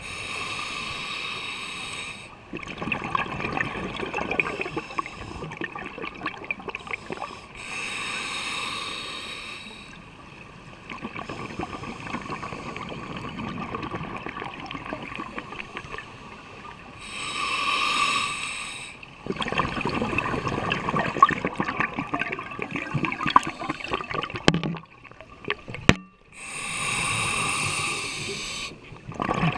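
A scuba diver breathing through a regulator, heard underwater: a hissing inhale of about two seconds, then a longer stretch of exhaled bubbles gurgling and crackling. The cycle comes round four times, roughly every eight or nine seconds.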